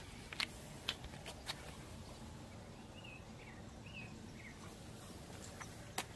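Faint outdoor ambience: a bird chirps four times in quick succession about three seconds in. There are a few light clicks in the first second and a half and another near the end.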